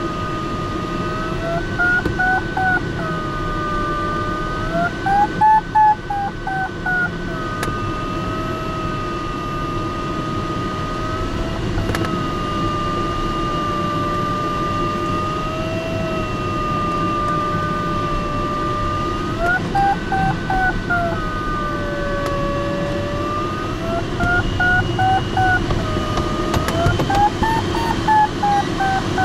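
A glider's audio variometer keeps up a steady tone. Several times it rises in pitch and breaks into quick beeps as the sailplane climbs in lift, then slides back to a steady lower tone. Underneath is the constant rush of airflow in the cockpit of a Glaser-Dirks DG-202.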